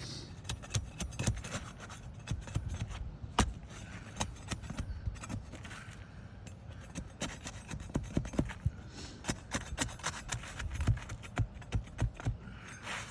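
Asphalt roof shingles being worked loose and pried apart: scraping and rubbing with many irregular sharp clicks and cracks as the sealed shingle edges are separated.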